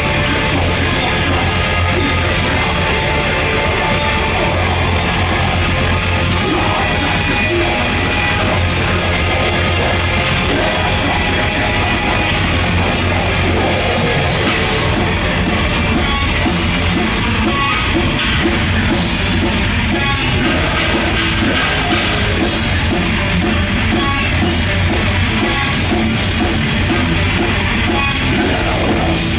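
Heavy metal band playing live: distorted electric guitars and a drum kit, loud and dense without a break.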